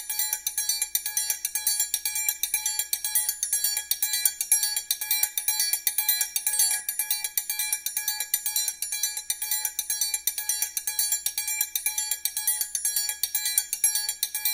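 Background music: the instrumental opening of a Brazilian pop song, a fast, steady pattern of struck metal bells ringing, with no voice yet.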